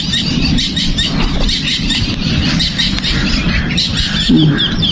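Small birds chirping over and over in quick, short high calls, over a steady low rumble of wind on the microphone.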